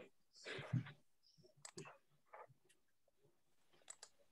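Faint, scattered clicks on a quiet video-call line, after a short breathy laugh about half a second in.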